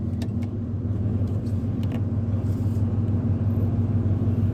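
Truck engine idling steadily, a low even hum, with a few light clicks in the first two seconds.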